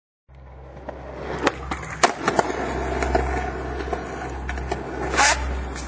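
Skateboard wheels rolling over pavement with a steady low rumble, with sharp clicks and knocks from the board and a brief louder burst of scraping noise near the end.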